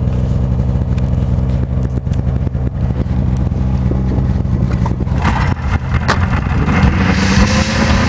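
Snowmobile engine running under way, a steady drone that rises slightly in pitch over the last couple of seconds while a hiss builds, with a few sharp knocks partway through.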